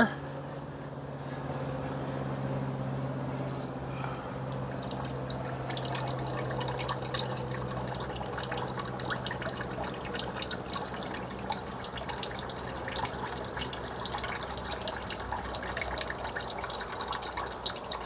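Water from a small electric pump trickling and dripping through a carved wooden fountain, in many small irregular drips that grow busier after about five seconds. A low steady hum sounds under the water at first and fades after about five seconds.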